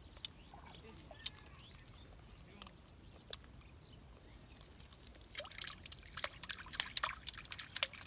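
Water splashing in a quick, irregular flurry from about five seconds in: a hooked fish thrashing at the surface of a small pond as it is pulled on a line. A few faint ticks come before it.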